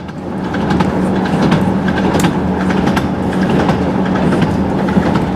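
Diesel passenger train running along the line, heard from inside the carriage: a steady rumble of engine and wheels on rail with a constant low hum and scattered light clicks from the track.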